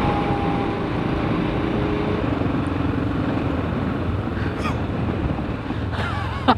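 Motorcycle being ridden at road speed: the engine running steadily under a dense rush of wind and road noise.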